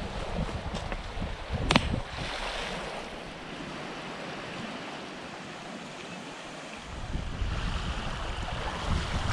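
Wind buffeting the microphone as a low rumble over a steady rushing hiss. The rumble drops away for a few seconds in the middle and then returns, and there is one sharp click just before two seconds in.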